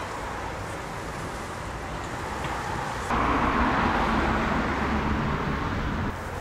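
Town road traffic: a steady rush of passing cars, which steps up abruptly louder about three seconds in.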